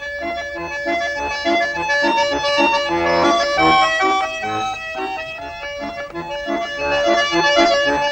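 Instrumental dance music, an accordion carrying a quick running tune over a steady rhythmic accompaniment.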